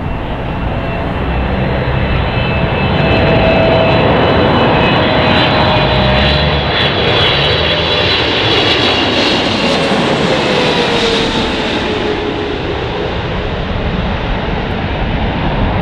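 Boeing 777-300ER's twin GE90-115B turbofans passing low overhead on final approach, landing gear down: a continuous jet rumble with a high fan whine. It grows louder over the first few seconds, and its tone slides down in pitch as the airliner passes and draws away toward the runway.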